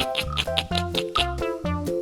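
Upbeat background music: a bouncy melody of short pitched notes over a bass line, changing about four times a second.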